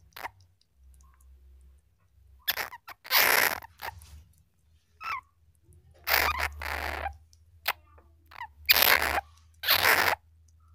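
Flying squirrel calling: a series of about five harsh, hissing bursts, each under a second, with a few shorter, quieter ones between.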